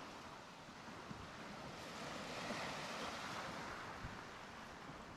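Small waves breaking and washing up a pebble beach, the wash swelling to its loudest about halfway through, with a little wind.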